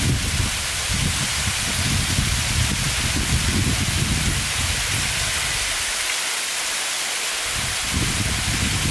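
Tall, thin waterfall pouring off a cliff onto rock and into a pool, a steady hiss of falling spray like rain. Under it runs a low rumble that comes and goes and drops away for about a second and a half, around six seconds in.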